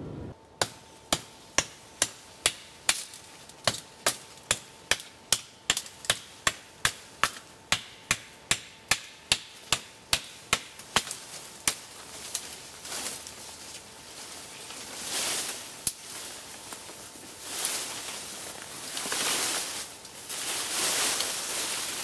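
A tactical bayonet chopping at the base of a small hazel sapling: sharp, even strokes, about two and a half a second, for the first half. After that the strokes stop and the leafy sapling rustles and swishes as it is pulled over and comes down.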